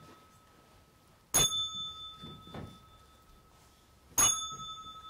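A small bell struck twice, about three seconds apart. Each is a sharp ding that rings on for a couple of seconds, and a few faint knocks fall between them.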